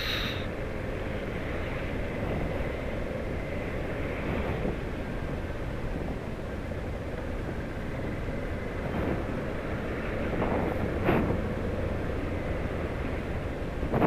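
Motorcycle engine running steadily while riding on a wet road, mixed with road and wind noise. A short rising-and-falling sound comes about eleven seconds in.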